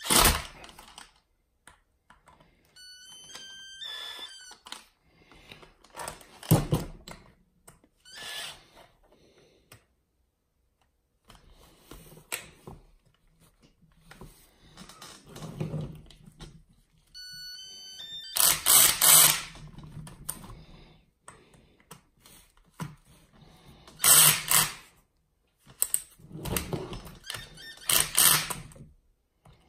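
Handheld cordless electric screwdriver running in several short bursts as it drives screws into an RC truck's chassis, with clicks and knocks from parts and tools being handled in between.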